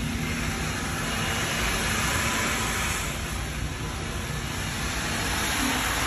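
Avidbots Neo autonomous floor-scrubbing robot running its scrub and vacuum motors, a steady rushing whir.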